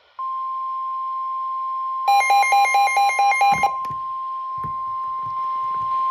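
NOAA Weather Radio warning alarm: a loud, steady single high tone at about 1050 Hz that starts a moment in and holds on, signalling that a warning, here a severe thunderstorm warning, is about to be read. For about a second and a half in the middle, rapid alternating beeps from a second alert device sound over it, followed by a few soft knocks.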